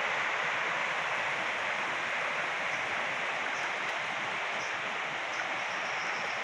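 Steady rush of a mountain river flowing over rocks, an even unbroken water noise.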